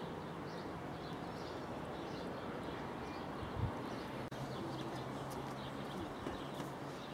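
Steady outdoor background noise with faint bird chirps scattered through it, and one brief low thump about three and a half seconds in.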